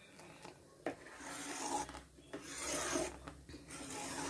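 Steel ladle scraping around the bottom of a stainless steel pan of rice and milk, stirred so the rice doesn't stick and catch. About three long scraping strokes, starting about a second in.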